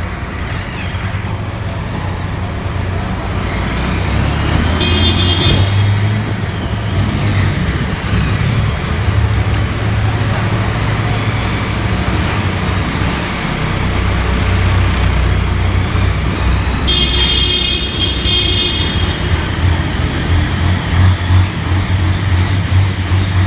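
A motor vehicle's engine rumbling steadily, echoing in a concrete tunnel. The rumble grows louder a few seconds in. A brief high-pitched tone sounds about 5 seconds in and again for about two seconds near 17 seconds.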